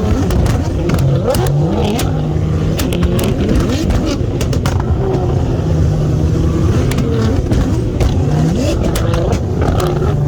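Nissan GT-R R35's twin-turbo 3.8-litre V6 running loud, holding a steady note and then revving up in short rising pulls a few times, with scattered sharp clicks.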